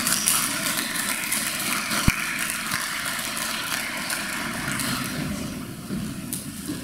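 Audience applauding in a large hall, fading away near the end.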